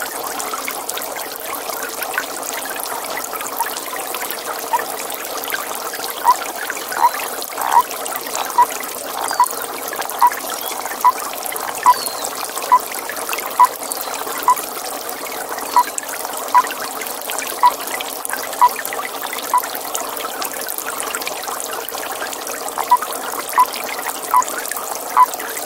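A toad calling in a pond: short, evenly spaced notes a little more than once a second, with a pause of a couple of seconds near the end. The calls sound over steady trickling water.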